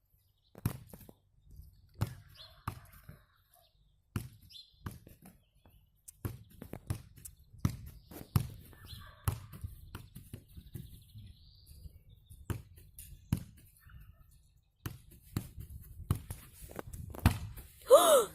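A ball being kicked and bouncing: a series of irregular thumps, some louder than others. Near the end comes a brief, loud pitched call that bends in pitch.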